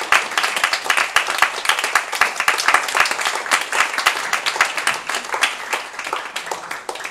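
Audience applauding, the clapping gradually thinning and fading toward the end.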